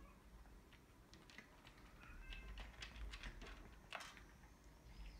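Exotic shorthair cats crunching dry kibble from their bowls: a faint, irregular run of crisp crunches and clicks, with a brief faint meow about two seconds in.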